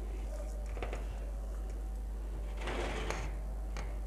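Fingers mixing cooked rice on a plate: soft rustling and light clicks, with a longer, louder rustle about three seconds in, over a steady low hum.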